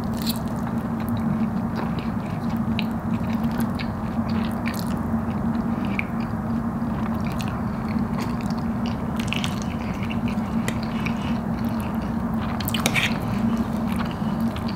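A person chewing and biting mouthfuls of fries in Alfredo sauce, with many short wet mouth clicks and smacks scattered throughout, over a steady low hum.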